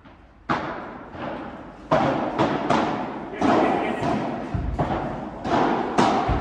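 A padel rally: about ten sharp hits, irregularly spaced, as the ball is struck by the rackets and bounces off the court and its glass walls. Each hit rings on in a large hall, and there is one dull, deeper thud a little past halfway.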